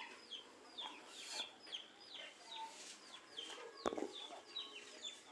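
Faint, repeated high chirping from chickens or small birds: short falling chirps, a few each second. A single sharp knock sounds about four seconds in.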